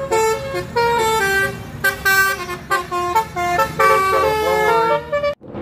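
A bus's multi-tone 'basuri' telolet horn playing a quick melody of short notes over the low sound of the bus running. It stops abruptly near the end.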